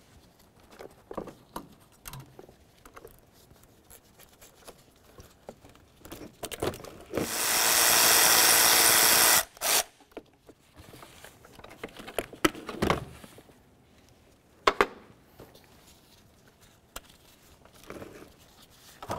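A cordless electric ratchet runs for about two seconds, spinning a nut off at the car battery, then gives a short second burst. Light metallic clicks and knocks of handling the terminals and tools come before and after.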